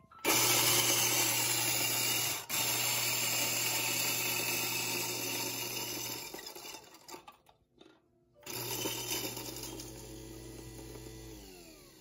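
Urbanic 060 electric coffee grinder's motor running as it grinds beans, in two stretches with a short gap between them. Near the end the motor spins down with a falling whine.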